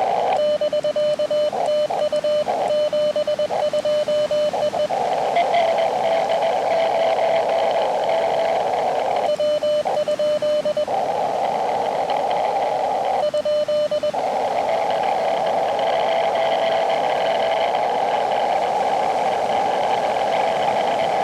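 Elecraft KX2 transceiver audio of a Morse code exchange: keyed sidetone beeps as Morse is sent, with the receiver hiss cutting out while sending. Between the sent passages come stretches of narrow-filtered band hiss carrying a fainter incoming Morse signal at a slightly higher pitch.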